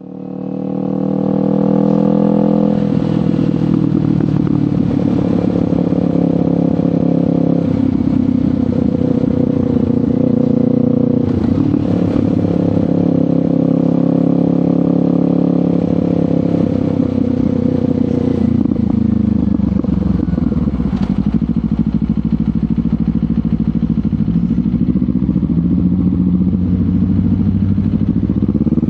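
Kawasaki Ninja 500 parallel-twin engine running through a LeoVince GP Corsa Evo exhaust while riding. The note falls in pitch over the first couple of seconds, holds fairly steady with a few brief changes, and starts climbing again right at the end.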